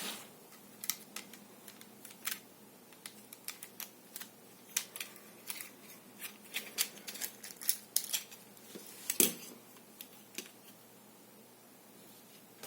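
Small hard pieces clicking and tapping at irregular intervals, typical of rosary beads and jewellery tools being handled on a work surface, with one louder knock about nine seconds in.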